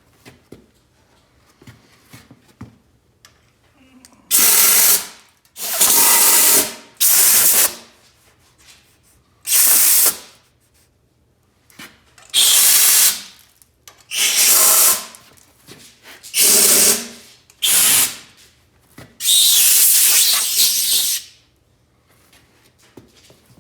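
Compressed air from a blow gun, fed by a shop air compressor, blasting out tapped bolt holes to clear chips and gunk: about nine short loud hisses, the last one the longest.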